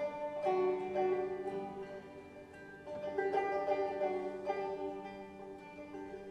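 Acoustic folk ensemble of clawhammer banjo, violin, acoustic guitar and bass clarinet playing an instrumental passage. Banjo and guitar are plucked over sustained violin notes, swelling louder near the start and again about three seconds in.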